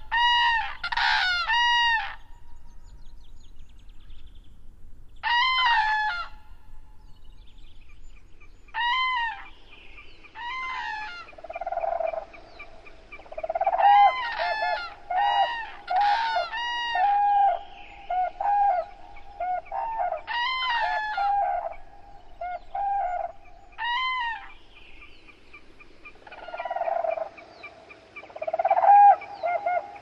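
Common cranes calling: loud trumpeting calls come in repeated groups of arching notes with short pauses between them. From about a third of the way in, and again near the end, a lower, quicker chatter of calls from more birds runs underneath.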